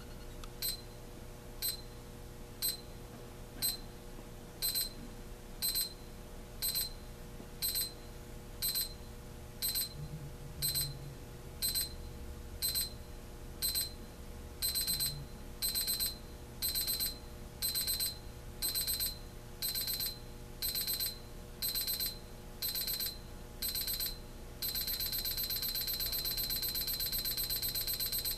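AcuRite 13007 travel alarm clock's electronic alarm beeping at a high pitch, going through its four-stage ascending pattern: single beeps about once a second, then pairs, then longer bursts, and about 25 seconds in a continuous rapid beeping.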